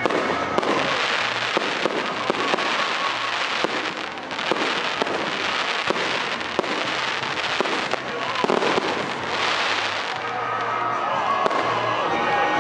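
Fireworks display: aerial shells bursting overhead in frequent sharp bangs, one after another. Music comes in near the end.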